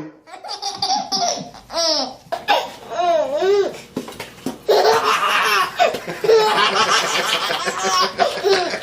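A baby laughing hysterically in high-pitched peals, short bursts at first, then a long almost unbroken run of laughter in the second half.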